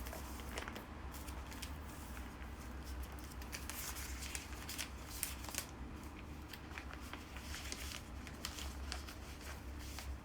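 Craft materials for a bouquet base being handled: rustling and crinkling with many scattered sharp clicks, over a low steady hum.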